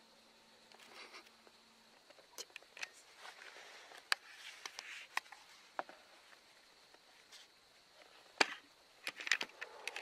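Scattered small clicks and short rustles of a camera being handled and panned, faint over the hush of pine woods, with the sharpest click late on and a quick cluster just after it.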